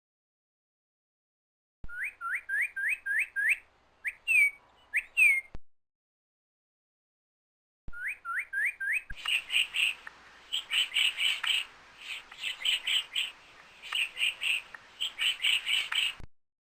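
A bird calling: short runs of quick rising whistled notes, broken by abrupt silences. From about nine seconds in it gives way to dense clusters of rapid chirps.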